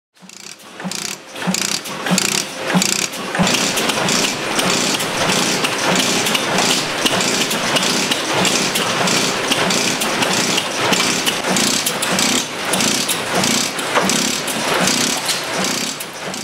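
1902 15 hp Reid hot-tube-ignition stationary engine running, its firing strokes and clattering mechanism beating in a steady rhythm.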